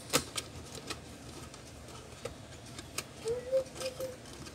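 Scattered sharp clicks and ticks of pliers working wires at the switch inside an electric fan's plastic rear housing, the loudest just after the start. A dove coos briefly about three seconds in.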